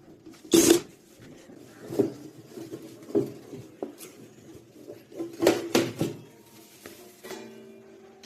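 A series of short knocks and clatters from objects being handled, about seven in all. The loudest comes about half a second in, and there is a cluster of three around five and a half to six seconds. Music starts near the end.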